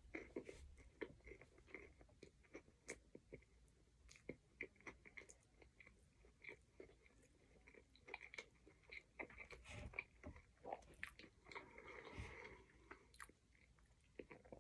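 Faint close-up chewing of a bite of chicken sandwich, a run of small irregular clicks from the mouth.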